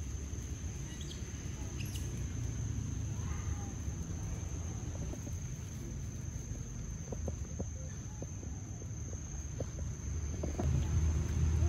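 Tropical forest ambience: a steady high-pitched insect drone over a low rumble, with a few faint short chirps. The rumble grows louder near the end.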